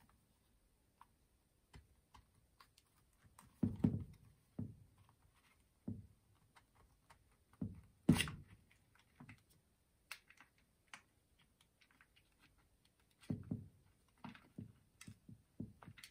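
Plastic housing halves of a Makita DF001G cordless drill-driver being worked apart and handled by hand: scattered, irregular clicks and knocks, the loudest about eight seconds in.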